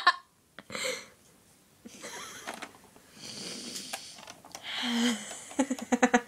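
A girl giggling breathily, with short puffs of air, breaking into pulsed laughter near the end.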